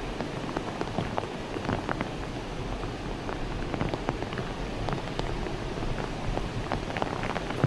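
Steady rain falling, with many small drop ticks scattered through it and a low rumble underneath.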